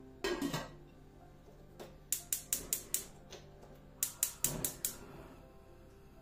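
Gas hob's electric igniter ticking in two quick runs of sharp clicks, about five a second, as the burner is lit under a pot of water. A pot lid clatters into place just after the start.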